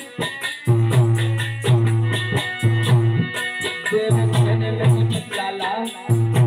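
Alha folk-ballad accompaniment: a harmonium playing sustained notes over a fast, even rattle of hand percussion, with strong low pulses about once a second.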